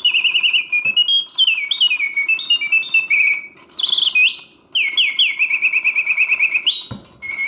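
Reuge mechanical singing bird cage whistling its bird song in continuous mode: rapid warbling trills and quick downward-sweeping chirps, the song broken by two short pauses between phrases.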